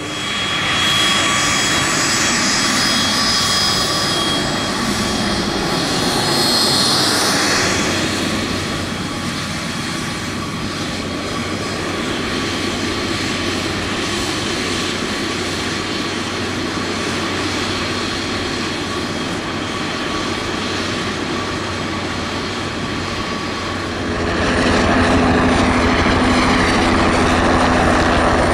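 HondaJet light business jet's twin turbofan engines whining steadily, louder for the first several seconds, then quieter. About 24 seconds in, a Bell 505 Jet Ranger X helicopter takes over, its rotor beating fast and evenly over the turbine.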